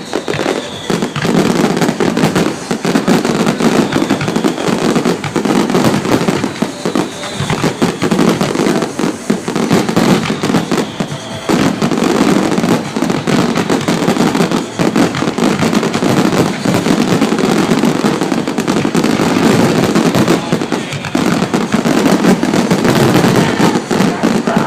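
Fireworks display going off in a dense, continuous barrage of bangs and crackle, with brief lulls about eleven seconds in and again near twenty-one seconds.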